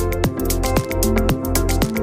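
Electronic dance music with a steady kick drum, about two beats a second, over heavy bass and sustained synth chords.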